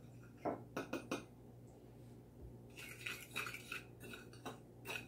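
A metal spoon stirring seasoned breadcrumbs in a glass pie dish, clinking and scraping against the glass. A few light taps come about half a second to a second in, then spells of scraping about three seconds in and again near the end.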